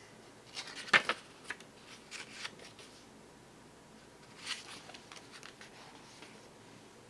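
Stiff tarot cards being handled: a few brief rustles and taps, the loudest about a second in, with more around two seconds and four and a half seconds.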